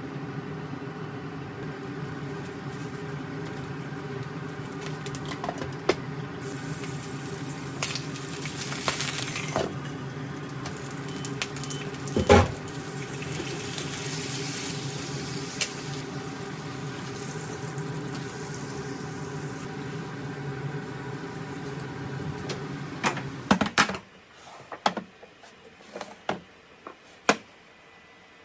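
Kitchen cooking sounds: a steady hum with a watery, hissing noise and scattered sharp clicks and knocks of utensils. The hum cuts off suddenly about four-fifths of the way through, leaving only a few knocks.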